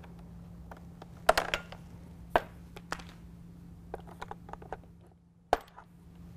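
Plastic clicks and rattles as the shutter blades of a truck grille's air-shutter assembly are pried out with a flathead screwdriver and handled: a quick run of clicks about a second in, a few single clicks and light ticks after, and one sharp snap near the end.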